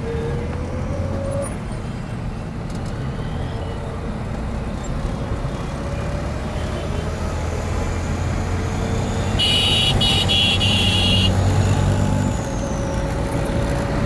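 City street traffic: vehicle engines running in a steady low rumble, growing louder as a vehicle passes close. About nine seconds in, a shrill horn sounds in quick stuttering pulses for about two seconds.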